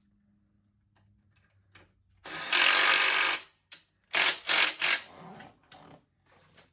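Hand-held power driver running a bolt in: one run of about a second, then three short bursts, with a few fainter bursts after.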